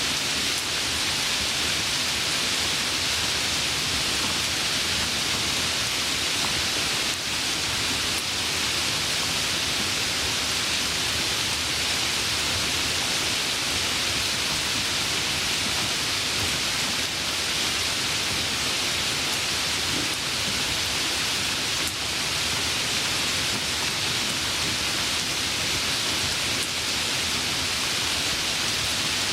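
Steady, even rain falling, a dense continuous patter with no thunder or gusts.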